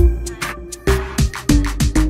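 Background music: a hip-hop style beat with kick drum and hi-hat strikes about every half second over held synth notes.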